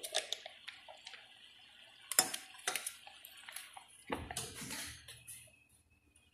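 A metal spoon clinking and knocking against a steel cooking pot, a few scattered strikes with the sharpest about two seconds in, then rustling handling noise for about a second.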